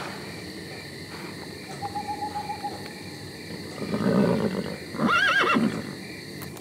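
A horse neighs about four seconds in: a low, rough sound rising into a high, arching whinny. Steady insect chirring runs underneath.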